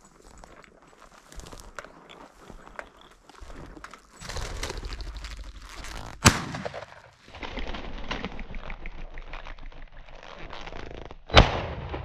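Footsteps crashing through tall dry grass, then a shotgun shot at a flushing rooster pheasant about six seconds in, and a second shot near the end, about five seconds after the first.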